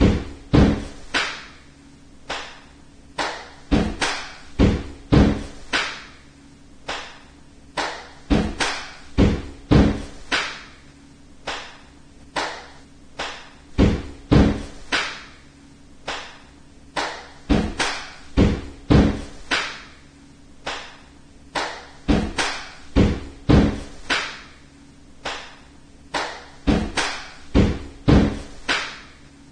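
Heavy bangs on a door or wall, over and over at an uneven pace of about one or two a second, each ringing out briefly.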